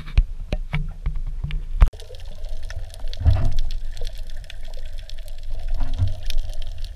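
A GoPro handled with a few sharp knocks, then plunged underwater about two seconds in. After that comes the muffled sound of water heard through the camera housing: bubbling and sloshing with low swelling rumbles as a snorkeler swims.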